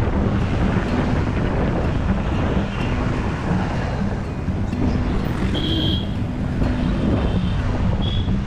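Wind buffeting the microphone while riding a two-wheeler through city traffic, over a steady low engine and road hum. Two short high-pitched beeps sound, about six seconds in and again near the end.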